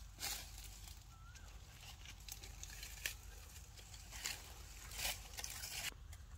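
Faint, scattered rustling and crackling in short irregular bursts, with one sharp click about three seconds in and one brief soft chirp about a second in.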